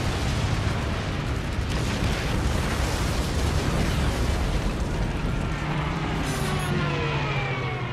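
Dense, continuous explosions and blast rumble from a battleship being bombed and burning. About five and a half seconds in, a warplane's engine passes close overhead, its pitch falling as it dives by.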